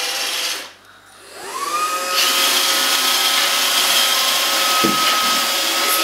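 iRobot Roomba robot vacuum spinning up its motors: after a brief lull, a rising whine levels off at about two seconds. It then runs steadily with a hiss and a held whine, and there is one short knock near five seconds.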